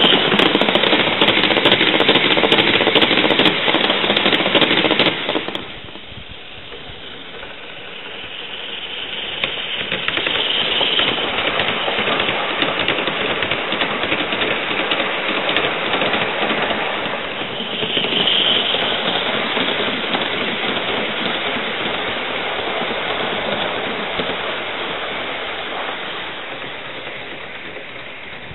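A Gauge 1 live-steam locomotive and its train of cars running on garden railway track: a fast clatter of wheels on the rails with steam hissing. It is loudest as the train passes close in the first five seconds and cuts off suddenly, then swells again as the train runs by and fades toward the end.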